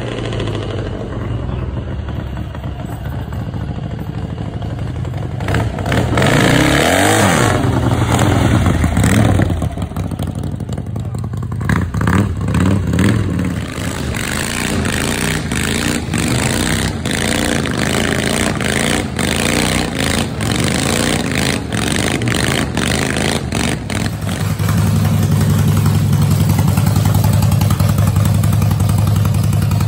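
Motorcycle engines running and being revved in rising and falling sweeps, then a chopper's V-twin engine settling into a loud, steady idle near the end.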